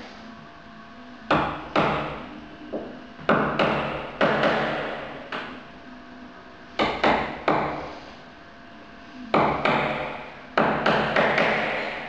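A hammer tapping the end of a scratch awl used as a center punch, marking dimples for the hinge screw pilot holes in the wooden door frame. There are about fifteen sharp taps in small groups of two or three, each with a short ring.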